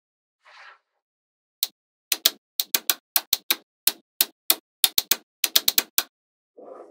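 Magnetic balls clicking together one after another as they are snapped into place: about twenty sharp clicks, several in quick pairs, with a soft rustle near the start and another just before the end.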